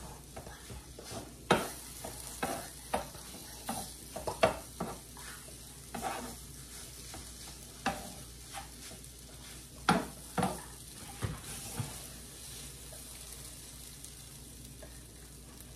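Scrambled eggs sizzling on an electric griddle while a silicone spatula scrapes, chops and taps across the hot cooking surface. The strokes come irregularly over a steady sizzle and thin out near the end as the eggs are lifted off.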